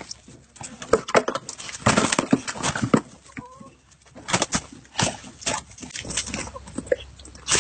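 A dog scuffling with a rooster and hens: irregular bursts of scuffling and flapping, with a short animal call about three and a half seconds in.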